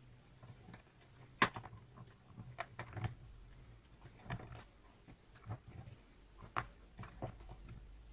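A metal screwdriver tip knocking and scraping against a plastic tub as it is worked through a bath of liquid: scattered light clicks and small splashes, with one sharper knock about a second and a half in. A low steady hum runs underneath.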